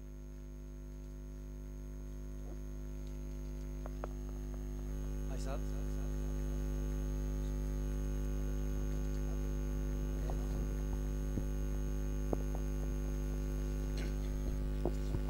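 Electrical mains hum from the sound system: a steady 50 Hz buzz with its overtones that grows louder over the first six seconds and then holds steady. A few faint clicks and knocks sound over it in the second half.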